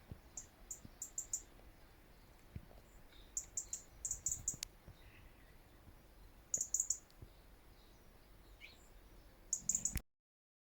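Small birds chirping: short, high-pitched notes in quick clusters of three or four, repeated every second or two over a faint outdoor hiss. The sound cuts off suddenly near the end.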